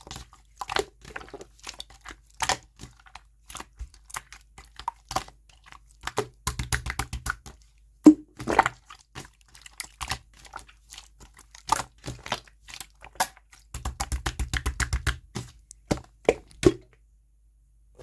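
Clear slime being squeezed and pressed by hand, making a string of sharp clicks and pops, with two quick runs of rapid clicking about six and fourteen seconds in. It stops about a second before the end.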